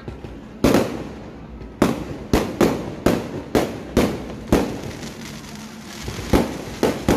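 Aerial fireworks bursting overhead in a quick, uneven series of about ten sharp bangs, each followed by a short echo. There is a lull of more than a second past the middle before the bangs resume.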